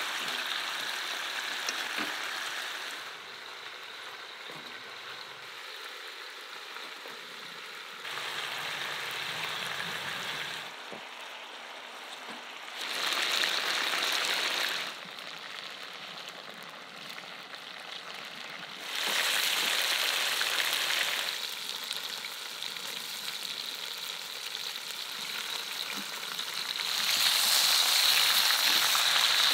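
Pieces of wild boar meat sizzling as they fry and brown in a pot. The sizzle swells and drops back several times and is loudest near the end.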